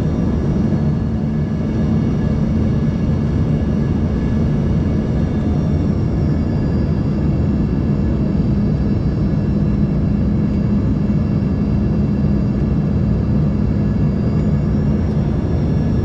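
Steady cabin drone of an Embraer ERJ-145 in flight, heard from a window seat: the rumble and hum of its rear-mounted Rolls-Royce AE 3007 turbofans, with a thin high whine that steps up in pitch about six seconds in.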